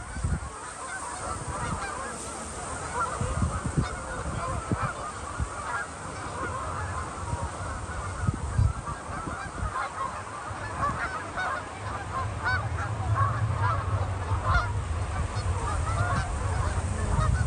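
A large flock of geese honking and calling, with many calls overlapping without a break.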